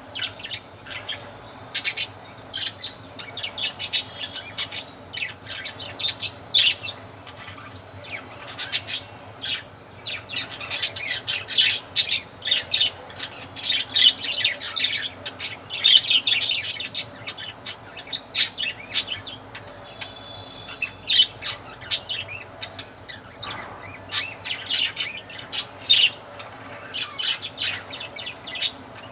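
Budgerigars chirping and chattering: many short, high chirps in quick, irregular runs.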